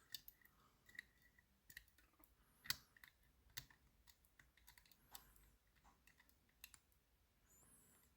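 Faint, irregular metallic clicks and ticks of a lock pick working the levers of a Lowe & Fletcher 8-lever safe lock under tension, nudging the levers left and right, with a few faint high squeaks of metal scraping.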